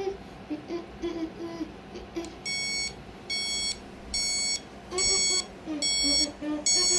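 Amazon Basics alarm clock going off: a high electronic beep repeating about once every 0.8 seconds, each beep about half a second long, starting a couple of seconds in and getting louder beep by beep.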